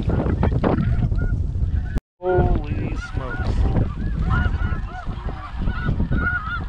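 Snow geese calling: many overlapping high-pitched honks over a low wind rumble on the microphone. The sound cuts out for a moment about two seconds in.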